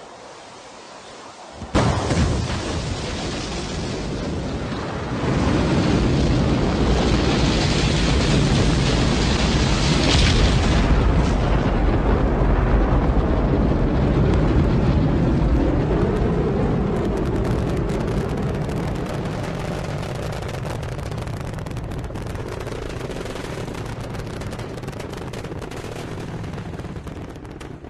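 Rocket launch: a sudden loud start about two seconds in, growing louder a few seconds later into a deep, noisy rumble that slowly fades through the second half as the rocket climbs away.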